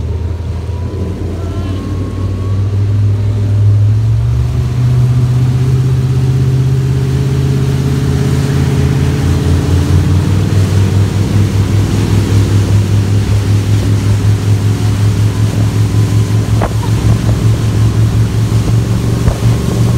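Motorboat engine speeding up over the first few seconds, then running steadily at speed with a regular throb while towing a tube rider.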